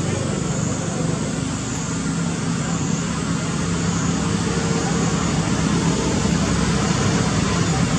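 A steady engine hum with a few low tones over constant rushing noise, growing slightly louder.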